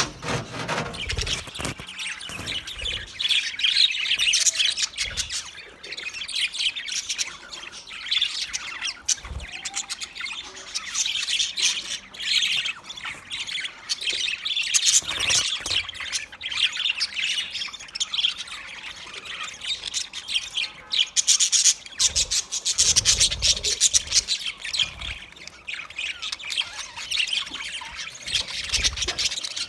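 Budgerigars chattering and squawking continuously: rapid overlapping chirps and harsh squawks, with occasional soft low thumps.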